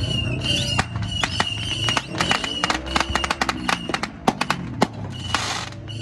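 Fireworks crackling overhead: a rapid, irregular run of sharp pops and cracks, with a short hiss about five seconds in.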